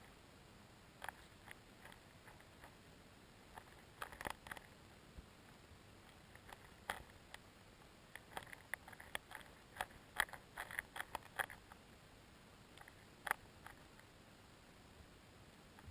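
Faint underwater sound from a camera lying in shallow lake water: irregular short, sharp clicks and ticks over a low hiss, a few scattered at first, then a dense run of them about eight to twelve seconds in.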